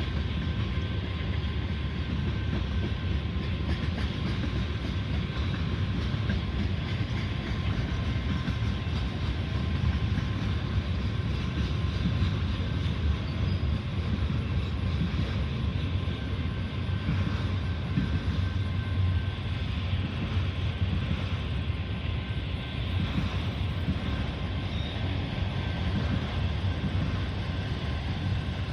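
Train rolling past, a steady rumble of wheels on rails with a couple of faint, steady high tones over it.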